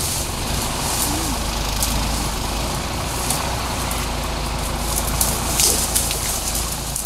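Car engine running with a steady low rumble, under a hiss of road and wind noise.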